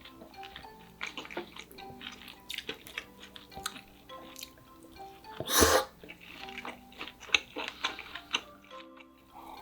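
Close-miked eating sounds: wet mouth clicks and chewing, with one louder, longer burst about halfway through, over soft background music.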